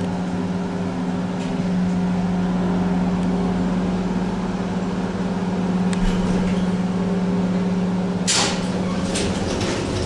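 Old FIAM hydraulic lift, modernised by Schindler, travelling up with its pump motor giving a steady hum; about eight seconds in a rushing, rattling noise starts as the car nears the floor. Just before, the lift did not sound too good to the rider, on a lift thought to have reliability issues.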